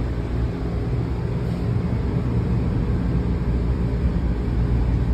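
MARC Camden line commuter train running along the track, heard from inside the car as a steady low rumble with a hiss over it.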